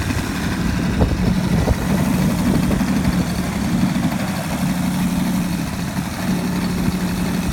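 DA-70 twin-cylinder two-stroke gasoline engine of a large RC aerobatic plane running at a steady speed through a hype can muffler, with low wind rumble on the microphone.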